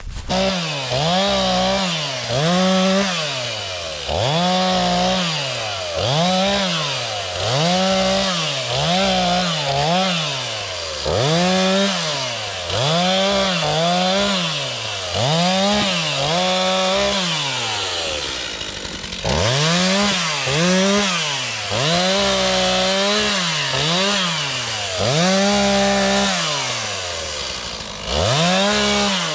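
Chainsaw cutting up tree limbs, its engine revving up and dropping back over and over, about once every second and a half. A little past halfway it falls to idle for a moment, then the revving resumes.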